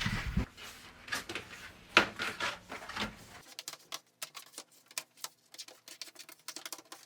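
Old rubber door seal being peeled out of an Indesit fridge door: a run of short crackles and pops, louder in the first three seconds, then fainter scattered ticks.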